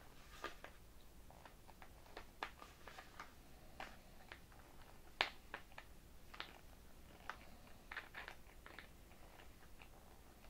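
Faint, irregular clicks and scrapes of a small Phillips screwdriver tightening the stopper screw in the neck of a plastic fuel tank, with one sharper click about five seconds in.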